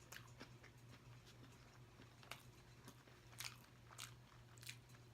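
Faint sounds of a person eating fast food: a few soft crunches and wet clicks of biting and chewing, scattered a second or so apart, over a faint steady low hum.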